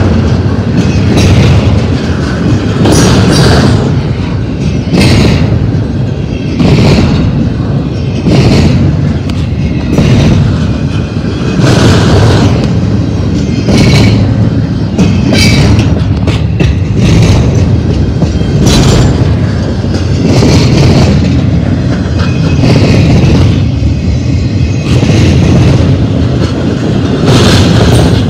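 Double-stack intermodal freight train's well cars rolling past close by: a loud, continuous rumble of steel wheels on rail, with sharp clacks recurring every second or two as the wheel sets go by.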